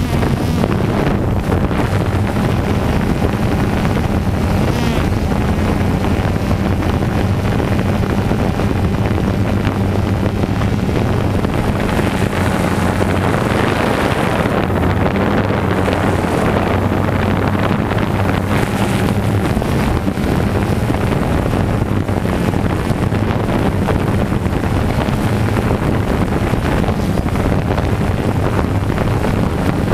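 DJI Phantom 2 quadcopter's motors and propellers running in flight, a steady low hum, heard up close from a GoPro mounted on the drone, with wind and prop-wash rushing over the microphone.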